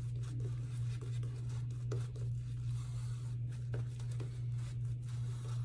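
Shaving brush working thick shave-soap lather over stubbly skin: a soft, steady scratchy brushing. A steady low hum runs under it.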